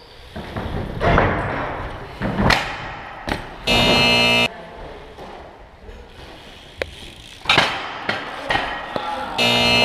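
BMX bikes rolling and landing on a concrete floor, with knocks and thuds about a second, two and a half seconds and seven and a half seconds in. A loud buzzer-like blaring tone sounds for under a second about four seconds in, and again near the end.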